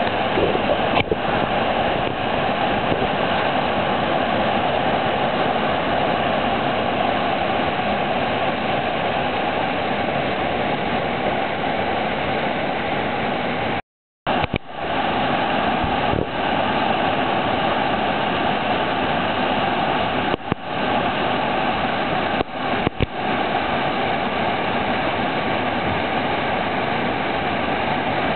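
Whitewater rapid pouring over boulders: a steady, loud roar of rushing water. It cuts out for a moment about halfway through and comes straight back.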